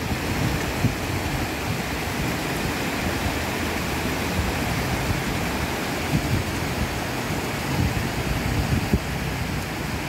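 Rain-swollen stream rushing over rocks in a steady wash of water noise, with wind gusting on the microphone as a low, uneven rumble.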